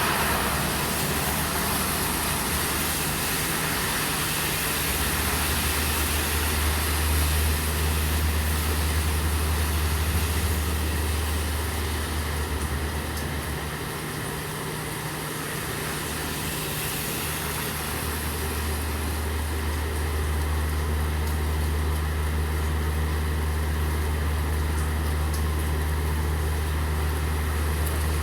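Steady rain hiss with a vehicle engine idling as a low, steady hum underneath. The hum fades for a few seconds around the middle, then returns.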